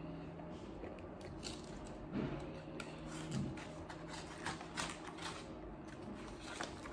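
A person chewing a hard dog treat with mouth closed: faint, irregular crunches and clicks.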